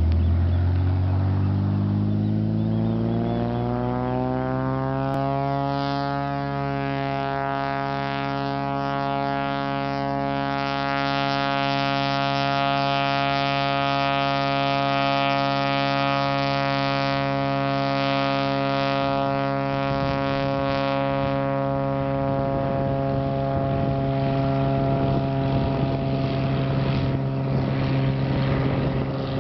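Single-engine Cessna floatplane's piston engine and propeller opening up to takeoff power, the pitch rising over the first six seconds, then running steadily as the plane races across the water.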